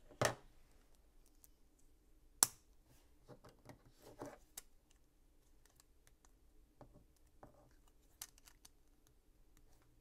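Plastic LEGO pieces being handled and pressed together: scattered light clicks and rattles, with a sharp snap about two and a half seconds in.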